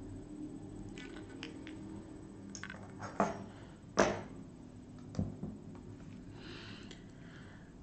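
Three sharp knocks or clicks, about a second apart, starting about three seconds in; the second is the loudest. A faint steady hum of the room runs underneath.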